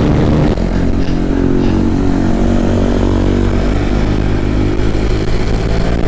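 Motorcycle engine running at a steady, nearly constant speed.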